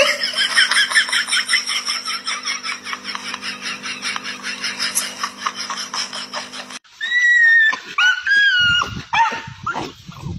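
A dog making a rapid run of high-pitched yelps and whines, several a second, over a steady low hum. After a sudden break about seven seconds in, a few long high whines that bend up and down.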